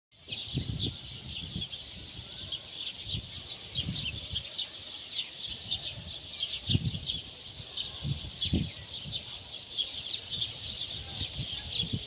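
A flock of small birds chirping over one another in a dense, unbroken chatter of short high chirps. Low thumps come now and then underneath, the strongest a little past halfway.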